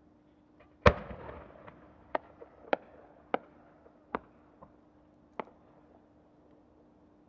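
A 12-inch (10-gou) aerial firework shell fired from its mortar: one loud boom about a second in, then about six smaller, sharp cracks spread over the next four seconds as the shell climbs, from the small effects attached to its rising trail.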